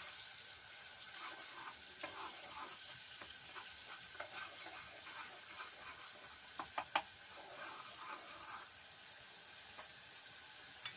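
Garlic sizzling steadily in hot pork lard in a pan, browning, with irregular clicks and scrapes of a utensil stirring it against the pan.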